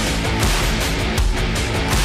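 Intro music with a heavy rock feel and a steady driving beat.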